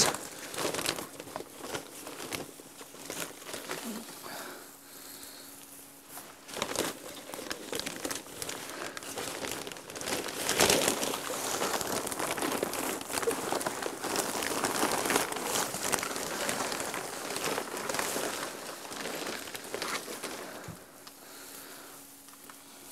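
Dry compressed alfalfa hay being broken up by hand into a bucket: irregular crinkling and rustling as the crumbly bottom of the bale comes apart in small bits. It is busiest from about ten to twenty seconds in.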